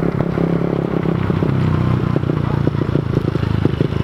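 Mini dirt bike's small engine running at low revs with a fast, steady putter, its pitch rising a little about a second in.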